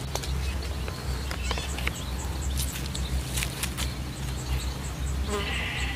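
Outdoor ambience: a steady low rumble with scattered small clicks and rustles, a run of faint high chirps at about four a second midway, and a brief higher call near the end.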